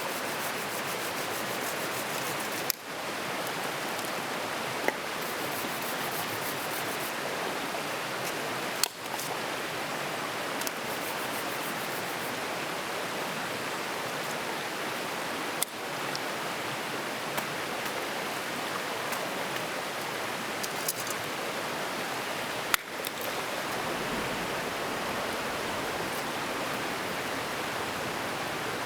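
Steady rush of a mountain stream, with a few sharp clicks spread through it.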